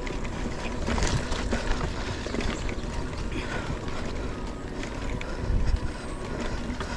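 Wind buffeting the microphone with tyre and road noise from a bicycle being ridden: a steady rumbling hiss with a few faint knocks.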